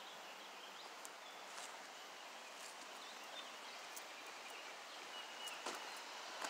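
Quiet outdoor ambience by a creek: a faint steady hiss, a few soft clicks, and a couple of faint, short, high bird chirps.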